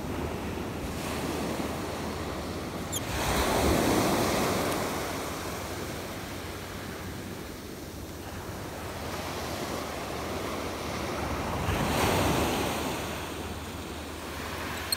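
Small sea waves breaking and washing up a gravel-and-sand beach, the surf swelling twice, about four seconds in and again about twelve seconds in.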